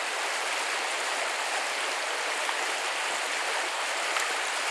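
Small forest brook rushing steadily over rocks and gravel.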